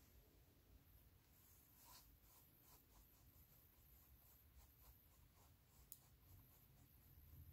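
Faint, short scratches and taps of a paintbrush working acrylic paint, over near silence, with one sharper click about six seconds in.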